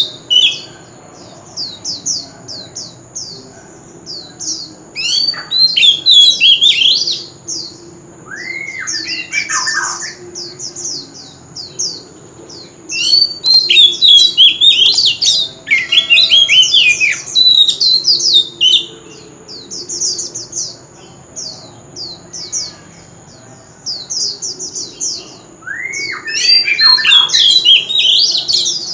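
Oriental magpie-robin singing loudly in varied bursts of rich whistled phrases, with gliding and fast falling notes, linked by runs of rapid high chips. A steady high-pitched whine runs underneath.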